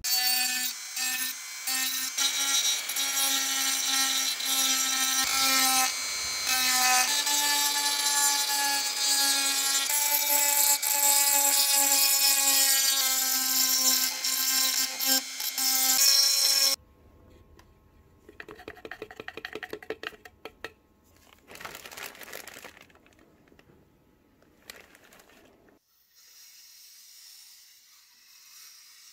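Handheld rotary tool with a small bit grinding on a sheet-metal lantern body: a loud, steady high whine that dips briefly and comes back slightly higher about six to seven seconds in, then cuts off suddenly a little past halfway. A few short rattling bursts follow, and near the end a soft steady hiss of a powder-coating spray gun.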